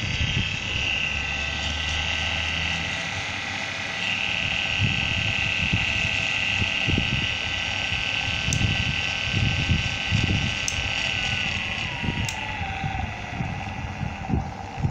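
LUST servo motor running on test: a steady electrical whine made of several tones. About eleven seconds in, one of the tones slides down in pitch over a second or so, as the motor speed drops.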